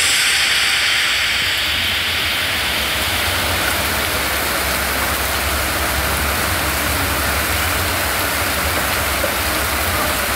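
Heavy rain pouring down on a street, a steady dense hiss, with a low rumble underneath.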